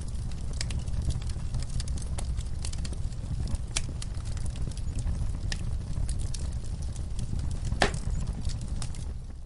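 Wood campfire crackling: a steady low rumble of flames with scattered sharp snaps and pops, the loudest pop about eight seconds in.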